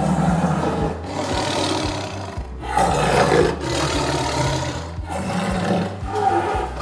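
Tiger roaring, a run of about six roars each about a second long, over steady low background music.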